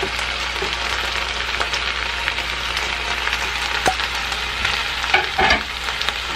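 Chicken pieces sizzling as they fry in a pan while diced tomato, bell pepper and onion are scraped in off a plate with a spatula. There are a few sharp clatters of utensil and plate against the pan about four and five seconds in.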